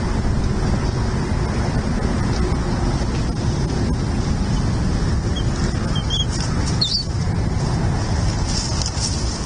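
Steady wind rumble on an outdoor microphone, with a few faint short high chirps about midway.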